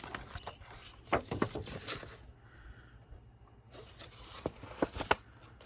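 Paper and card being handled: sheets rustling and sliding against each other, with light taps and clicks, in two bursts with a short lull between.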